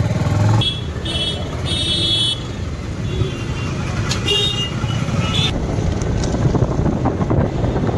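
Motorcycle riding in traffic: a steady engine and road rumble, with vehicle horns honking in several short blasts during the first couple of seconds and again twice between about four and five and a half seconds in.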